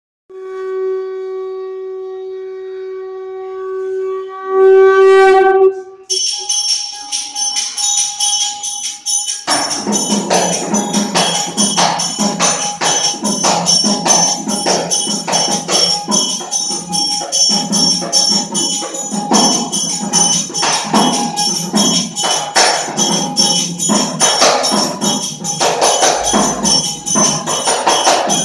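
Indian folk orchestra music. A single wind-instrument note is held for the first few seconds and bends near its end. Then jingling percussion sets up a fast, steady rhythm, and about three seconds later a large barrel drum and hand drums join in.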